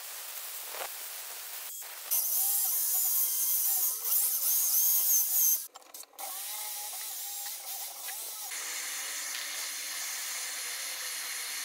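Dremel-type rotary tool grinding away the tack welds that hold the restrictor cone in the exhaust header's inlet. Its whine wavers in pitch as the bit bites, with a brief break about six seconds in. Near the end a steady hiss sets in as a blowtorch heats the flange to free the restrictor.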